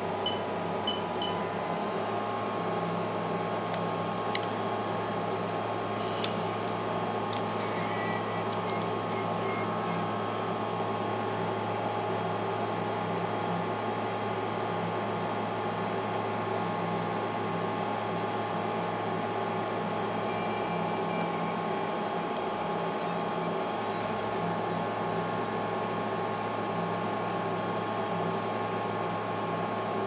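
Steady whir of a hot-air rework station's blower with a high whine, which steps up slightly in pitch about two seconds in, as solder on a phone motherboard is being heated. A few light clicks in the first several seconds.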